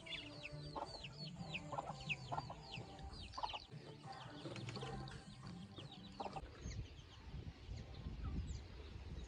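Domestic chickens clucking faintly, over a quick run of high, short, falling peeps, a few each second.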